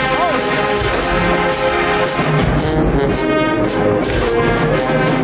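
Marching band brass section playing held chords over a steady drumbeat, about two to three strikes a second.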